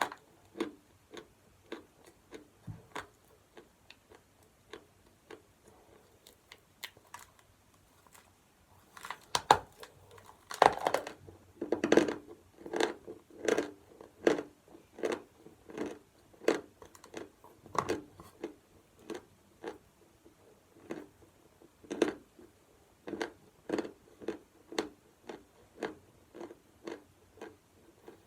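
Close-up crunching of someone biting and chewing chalk, a steady run of crunches about three every two seconds, loudest around ten to twelve seconds in.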